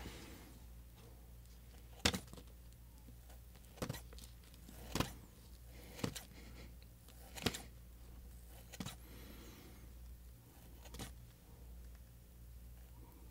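Scissors snipping open a small plastic powder sachet from a Popin Cookin kit: sharp single snips every second or two, about seven in all, with faint packet rustling.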